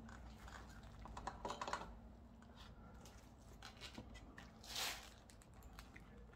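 Faint small plastic clicks and light rattling as a motorcycle speedometer gauge and its mounting bracket are handled in gloved hands and worked into the headlight bucket, with a brief rustle of noise about three-quarters of the way through.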